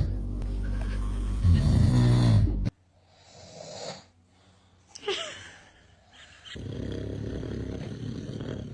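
A man snoring: a loud, deep snore that cuts off suddenly a little under three seconds in. After a quiet stretch with a soft breath and a brief high sliding squeak, a long, breathier snore begins about two-thirds of the way through.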